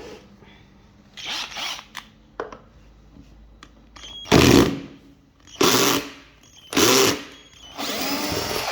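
A handheld power drill driving out screws in short bursts: a few lighter runs, then four louder bursts about a second apart, the last one the longest. The screws on the supercapacitor module's casing are tight.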